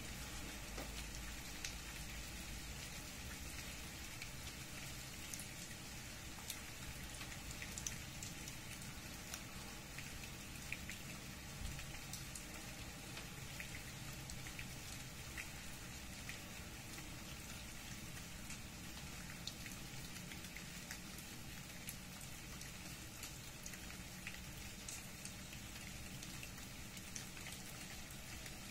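Steady rain falling, with individual drops ticking sharply here and there throughout.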